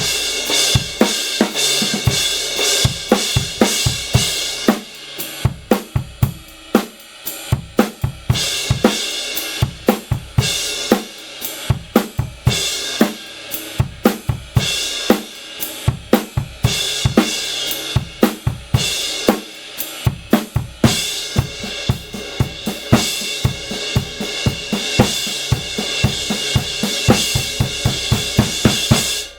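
Drum kit played in a steady groove of kick, snare and hi-hat, with a Kingdo Artist Dark 18-inch crash cymbal struck again and again. Its wash rings over whole stretches of the beat and drops away in the drier passages between.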